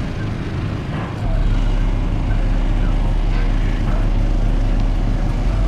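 A steady low hum that gets deeper and louder about a second in and then holds, under faint background voices.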